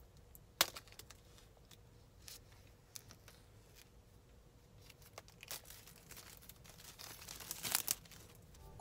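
Faint handling of an Apple Pencil's cardboard box with a few light clicks, then the paper seal or tear strip being torn off, a crinkling rip that grows louder near the end and is loudest just before it stops.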